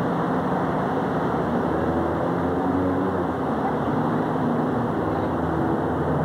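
Steady drone of engines and traffic in the city, with low engine tones that waver slightly in pitch.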